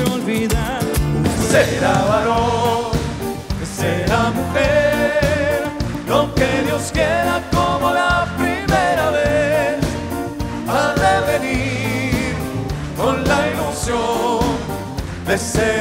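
Live band performance with male singers: sung melody with held, wavering notes over a continuous band accompaniment.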